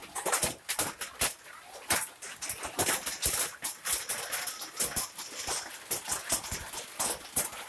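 Hailstorm with heavy rain: an even rain hiss under a dense, irregular patter of sharp clacks as hailstones strike the road and nearby surfaces.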